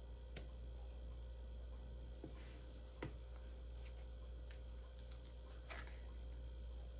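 Faint clicks and light rustles of foam glue dots being peeled off their sheet and pressed onto a cardstock piece, with two sharper clicks, one just after the start and one about three seconds in, over a low steady hum.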